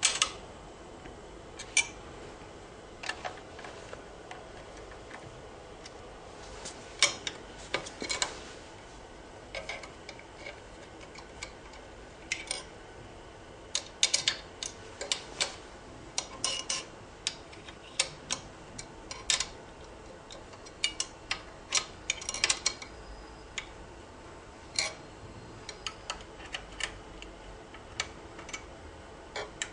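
Irregular small metallic clicks and clinks of hands and screws as a test fixture is fitted and screwed down on a plug-and-socket endurance test machine. The clicks come in scattered clusters over a faint steady background.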